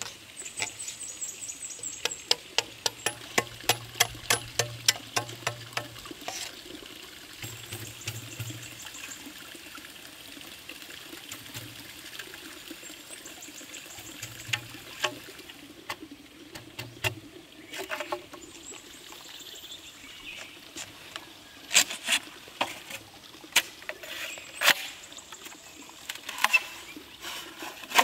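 Knife blade knocking into bamboo as a pole is split: a quick run of sharp knocks, about three a second, for the first several seconds, then scattered, louder single strikes in the second half. A stream trickles steadily and birds chirp.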